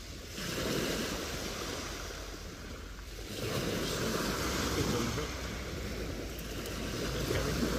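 Small waves breaking and washing up a shingle beach, in two surges: one just after the start and another about three seconds in.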